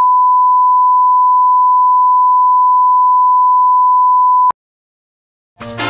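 Steady 1 kHz line-up test tone accompanying broadcast colour bars, loud and unchanging, cutting off abruptly about four and a half seconds in.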